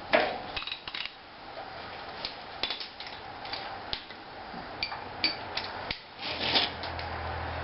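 Scattered metallic clicks and clinks of bolts and hand tools being handled, a couple with a short ring, as the axle carrier bolts are worked loose. A low steady hum comes in near the end.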